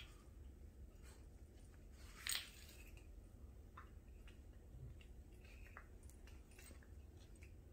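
Faint soft scuffles, clicks and mouthing sounds of a dog and a kitten play-wrestling on a wooden floor, with one brief louder rustle a little over two seconds in.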